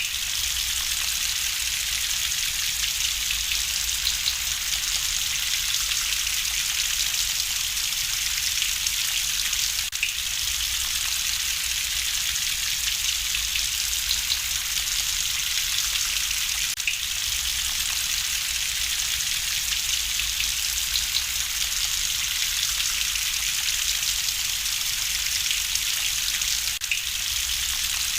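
Steady rain hiss, with light crackling from a wood fire in a fireplace.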